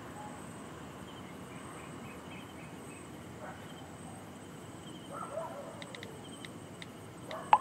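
Crickets chirping steadily in night-time ambience, with a few faint ticks after the middle and one short sharp sound just before the end, the loudest moment.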